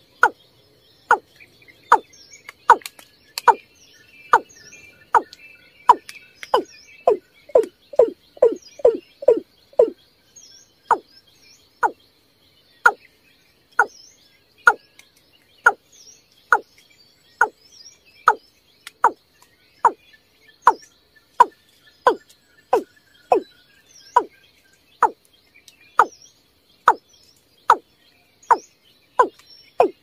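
Watercock calling: a long, steady series of short, deep notes that each fall in pitch, a little over one a second, quickening into a rapid run about a quarter of the way in.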